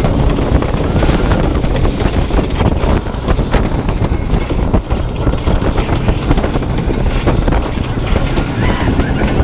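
Rocky Mountain Construction hybrid roller coaster train running along its steel-topped track: a loud, steady rumble and rattle of the wheels, with many small clicks.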